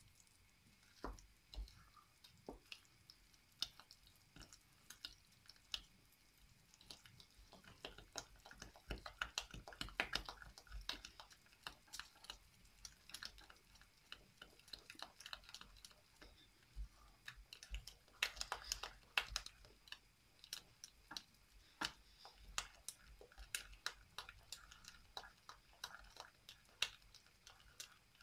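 Wooden spoon stirring thick churro dough in a stainless steel pot, with faint, irregular squelches and clicks of the spoon working the paste and knocking the pot. This is the flour being beaten into the hot butter-and-water base so it cooks without lumps.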